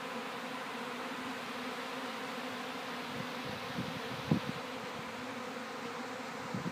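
A mass of swarming bees buzzing steadily in the air close around, with one brief low bump about four seconds in.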